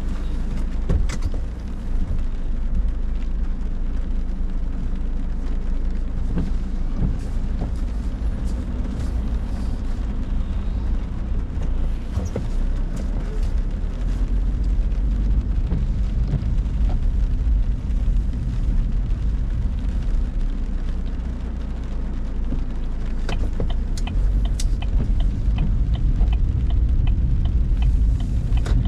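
Inside a car driving in heavy rain: a steady low rumble of engine and tyres on the wet road, with scattered ticks and taps of rain striking the car, growing a little louder near the end as the car gets under way.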